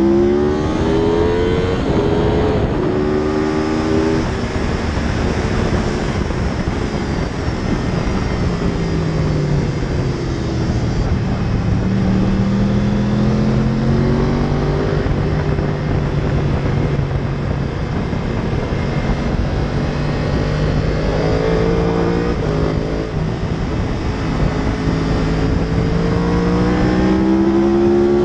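2014 Yamaha YZF-R1's crossplane inline-four engine heard onboard at track speed: it climbs in pitch in steps as the rider shifts up at the start, drops away as the bike slows, holds a fairly steady note through a long stretch, then climbs through the gears again near the end. A steady rush of wind and road noise runs underneath.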